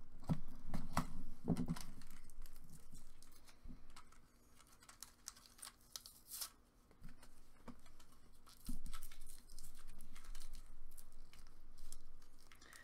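Small screwdriver clicking and scraping against a plush toy's plastic battery sound box while button batteries are pried out, with paper crinkling. The clicks and scrapes come irregularly, thickest in the first couple of seconds and again in the last few.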